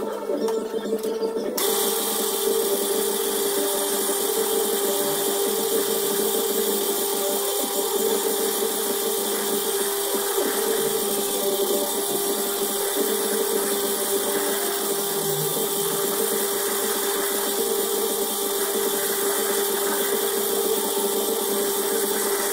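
Metal lathe running with a steady motor hum and whine, turning a carburettor body in a four-jaw chuck while the cutting tool takes metal off it. A hiss joins the hum about a second and a half in.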